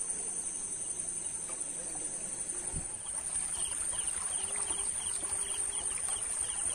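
Night insects: a steady high cricket trill, joined about three seconds in by a second insect's rhythmic chirping, about three chirps a second.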